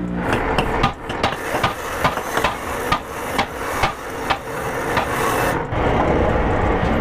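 Sharp knocks of a motorcycle exhaust muffler being hammered as it is opened for re-packing with new fibre, irregular at about three a second and stopping about five and a half seconds in. A duller steady noise follows.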